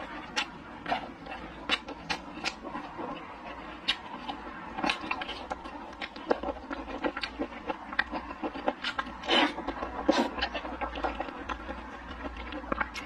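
Close-miked wet chewing and lip smacking of a mouthful of braised meatball, a run of irregular sharp clicks and smacks.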